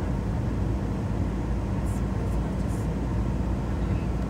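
Steady low drone inside an airliner cabin in flight: engine and airflow noise heard from a window seat.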